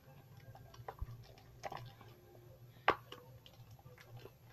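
Slime being mixed while it is still sticky: irregular wet smacks and clicks, with one sharper click about three seconds in.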